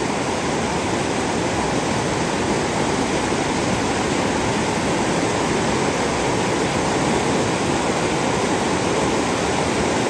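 Steady rush of fast-flowing river water, an even unbroken noise.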